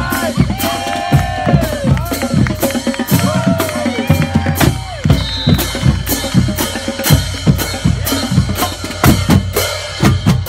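A marching band playing: a drumline beats out a rapid, steady rhythm on bass and snare drums, with sousaphones and other brass sounding notes over it, mostly in the first half.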